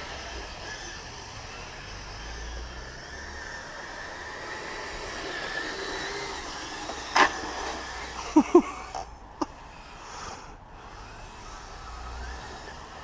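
Kyosho Blizzard radio-control snow vehicle running on its brushed electric motor, a steady whine with track noise as it drives through snow. A sharp click comes about seven seconds in, followed by a few short squeaks.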